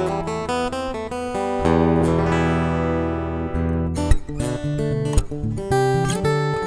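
Takamine PTU200 SP-K dreadnought acoustic-electric guitar heard through its pickup rather than a microphone: ringing chords and picked notes, with a few sharp strums in the second half.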